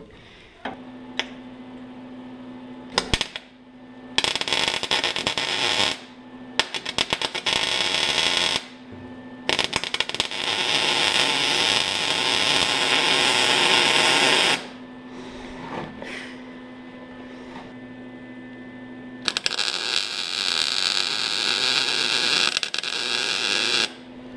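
A power tool run in four bursts of a few seconds each, the longest about five seconds, on rusted rocker-panel sheet metal. The second burst rattles with rapid strikes. A faint steady hum is heard between the bursts.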